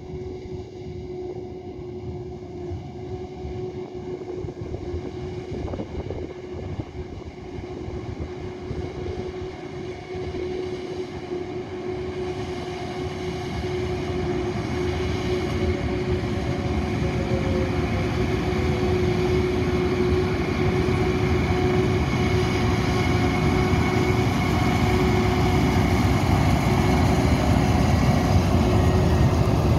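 Claas Jaguar 980 self-propelled forage harvester chopping maize, its cutterhead and blower giving a steady hum over the engine, together with a Fendt 936 tractor pulling a Claas Cargos wagon alongside. The din grows steadily louder as the machines draw nearer.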